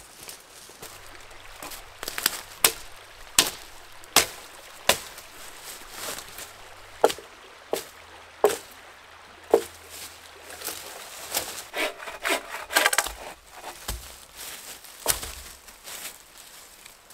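Dry dead wood and twigs on the forest floor cracking and snapping sharply, about once a second at irregular spacing, with leaf litter crunching and a denser patch of crackling about two-thirds of the way through.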